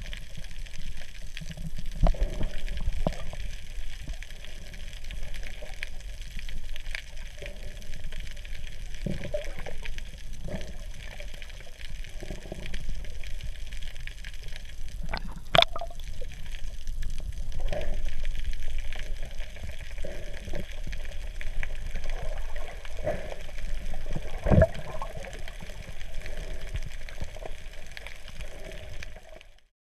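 Muffled underwater sound picked up through a submerged camera's waterproof housing: steady water noise with scattered knocks and thumps, cutting off suddenly near the end.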